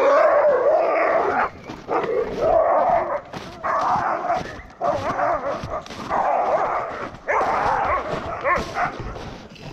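Several Alaskan husky sled dogs barking and yelping over one another in repeated bursts, the excited clamour of a team being hooked up and eager to run.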